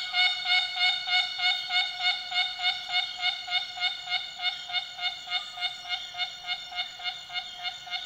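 Empress cicada (Megapomponia merula) calling: a loud, pitched, sawing song broken into even pulses, about three a second.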